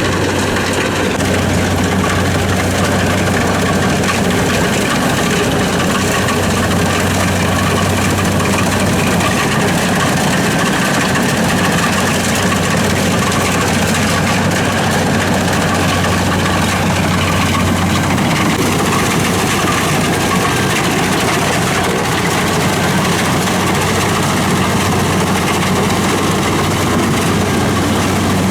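Kubota DC-70 rice combine harvester's diesel engine running steadily with a constant low hum.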